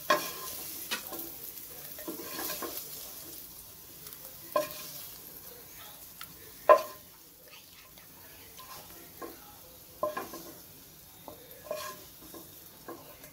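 Spatula clinking and scraping on a steel frying pan and plate as fried paneer cubes are lifted out and set onto the plate, a dozen or so sharp clinks with the sharpest about seven seconds in. Hot oil in the pan keeps up a faint sizzle.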